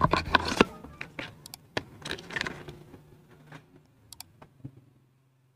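Light clicks, taps and a rustle of a Paratenza syrup carton and its plastic measuring spoon being handled, busiest in the first three seconds, then thinning to a few scattered ticks.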